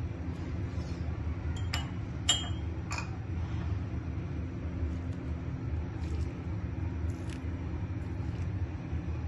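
About four sharp metallic clinks of a utensil against a metal cooking pot of layered biryani rice, between about one and a half and three seconds in, over a steady low rumble.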